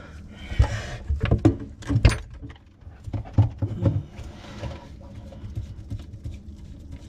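Knocks and clunks with some scraping as a garbage disposal is handled and turned on its sink mounting ring, still not fully locked in. The knocks come in a cluster over the first few seconds, then it goes quieter.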